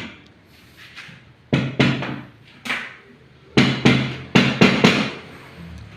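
Hammer knocks during tile-setting work: about nine sharp strikes in irregular groups, a few in the first half and a quicker run of blows in the second half.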